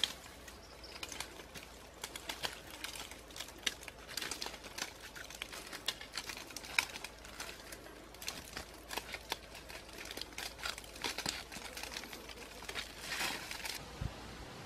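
Dry twigs, bark and leaves crackling and rustling as a person climbs a tree, in many quick irregular clicks with denser bursts every few seconds.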